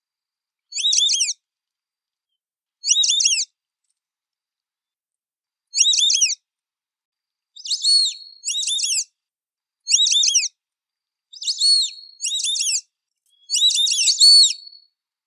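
White-faced whistling ducks (irerê) giving their high, clear whistled calls, each a quick phrase of three notes, repeated about nine times. The calls come a few seconds apart at first, then closer together and overlapping near the end.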